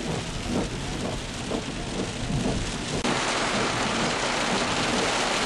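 Heavy thunderstorm rain beating on a car's roof and windows, heard from inside the car. About three seconds in it jumps to a louder, steady hiss.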